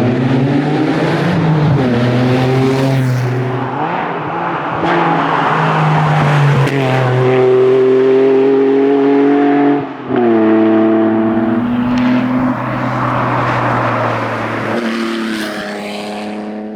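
Lancia Stratos rally car engine pulling hard through the gears. The pitch climbs steadily, then drops sharply at each upshift, several times over, with a brief cut in the sound about ten seconds in.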